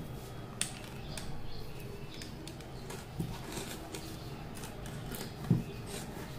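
Utility knife scoring and slitting packing tape on a cardboard mailing tube, with faint scratching and a few soft knocks as the tube is handled; the loudest knock comes about five and a half seconds in.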